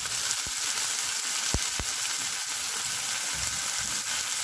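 Frozen zucchini pieces sizzling in oil in a ceramic frying pan, a steady hiss, with two soft knocks about a second and a half in. Near the end a spatula stirs the pieces.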